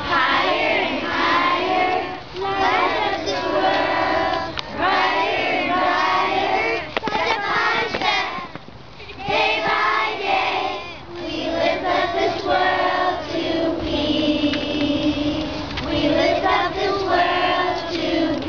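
A group of second-grade children singing together, phrase after phrase, with a short break about halfway through.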